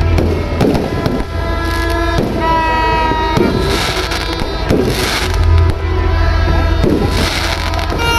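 Aerial fireworks bursting overhead, several sharp bangs and crackling bursts spread through, over music with held notes and a steady low beat.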